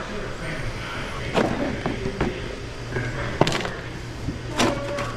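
Several sharp metal clanks, with brief ringing, as steel tooling is handled and set down on a lathe and in a metal bin. A steady low machine hum runs underneath.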